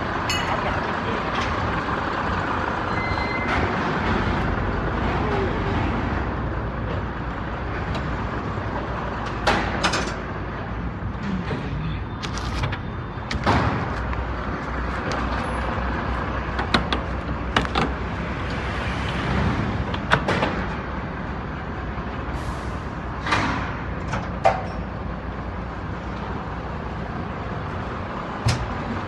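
A truck engine running steadily, with scattered sharp knocks and clanks as heavy machines are loaded onto the truck.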